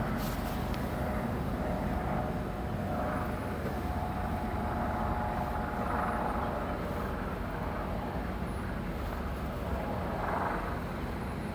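Steady outdoor rumble with a faint, even engine hum from distant traffic.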